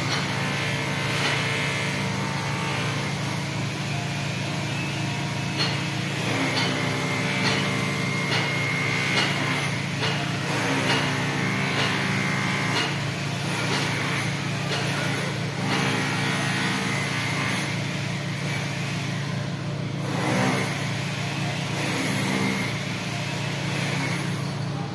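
A steady motor hum, like an idling engine, with faint voices in the background.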